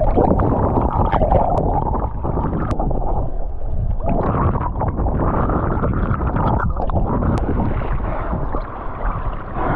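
Steady, muffled rush of sea water and wind buffeting the microphone, with no clear strokes or tones.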